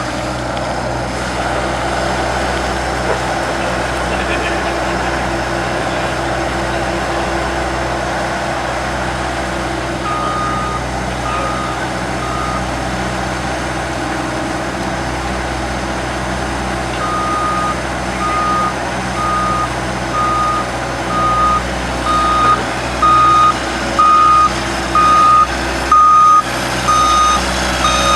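Skid steer loader engine running steadily while its backup alarm beeps about once a second, starting about ten seconds in and getting louder near the end as the machine reverses.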